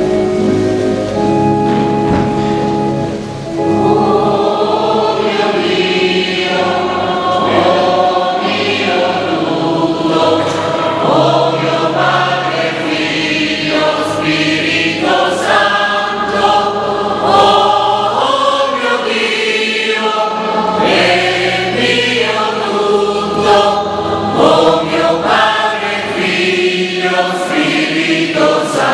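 Choir singing a slow Italian Catholic hymn with keyboard accompaniment. Held chords open, and the voices enter about four seconds in.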